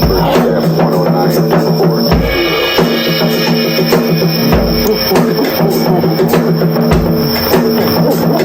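Drum kit played in a solo, with deep bass-drum hits about every two and a half seconds, over a steady droning tone.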